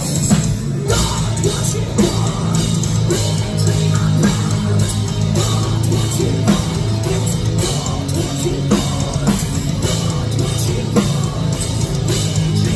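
Heavy metal band playing live: distorted electric guitars, bass and drum kit, loud and continuous, heard from within the crowd.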